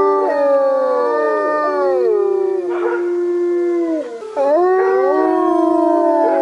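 Wolves howling in chorus: several long, overlapping howls at different pitches, sliding slowly down. The chorus dips about four seconds in, then a fresh round of howls starts.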